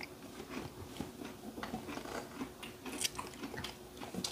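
Children chewing and biting food at a meal, with scattered small clicks of spoons and chopsticks against bowls.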